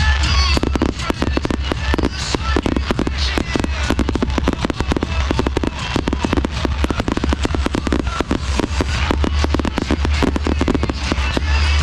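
Dense fireworks barrage: aerial shells and comets bursting and crackling many times a second in rapid succession, over a steady low rumble.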